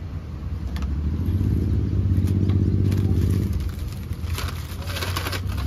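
A motor vehicle's engine passing close by: a low rumble that swells to a peak about two seconds in and fades away by about four seconds.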